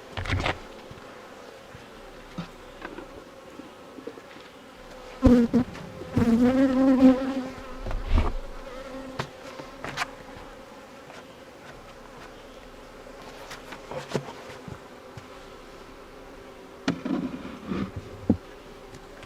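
Honeybees buzzing around an open hive, a steady hum. About five seconds in, a louder buzz wavers up and down in pitch for a couple of seconds. A few short knocks are scattered through it.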